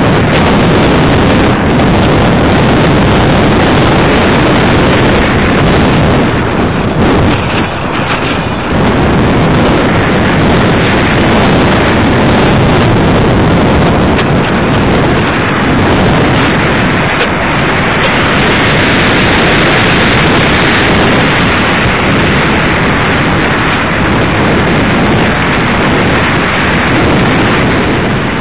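Loud, steady rush of wind over the microphone of a camera riding on a ParkZone Radian RC glider in flight, with a brief dip about seven seconds in.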